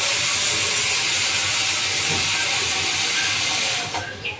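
Kitchen tap running water into the sink, a steady rush that stops about four seconds in.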